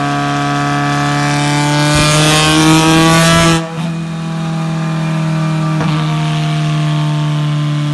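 Alfa Romeo Giulietta TCR race car's turbocharged four-cylinder engine pulling under load on a dynamometer, its pitch rising steadily for about three and a half seconds. It cuts off abruptly as the throttle closes, and a lower steady drone runs on.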